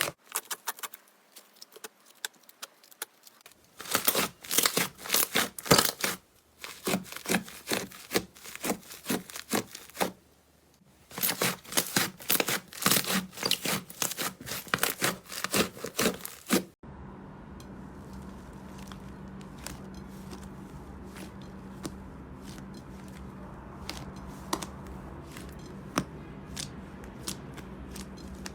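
Slime being squeezed and stretched, giving dense runs of crackling, popping clicks, paused twice. About two thirds of the way in it changes abruptly to a steady low hum with only occasional soft pops.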